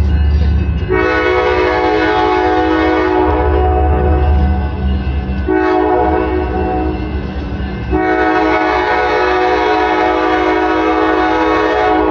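Locomotive multi-chime air horn sounding three long blasts: the first about a second in, the second after about five and a half seconds, the third from about eight seconds in running past the end. A low rumble fills the gaps between blasts.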